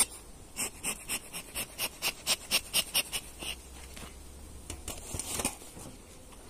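Quick rhythmic scraping, about five strokes a second, that stops about three and a half seconds in, followed by a short rustle near five seconds.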